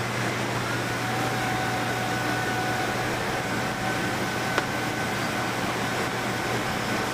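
Woodworking-factory floor noise: a steady machinery hum and hiss, with a steady high whine from about a second in and one sharp click a little past the middle.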